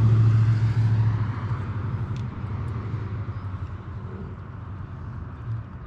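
A vehicle engine's low steady hum, loud at first and fading away over the first couple of seconds, then a quieter steady rumble.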